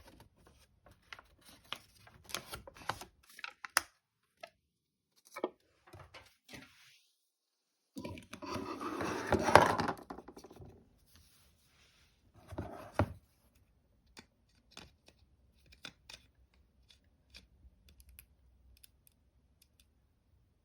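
Doll packaging being opened by hand: scattered clicks and taps, a loud stretch of tearing and rustling about eight seconds in, a shorter one a few seconds later, then a few light ticks.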